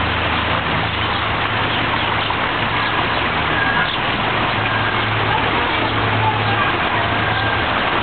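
Steady rushing of a small waterfall spilling over rocks, an even noise with no breaks, over a low hum.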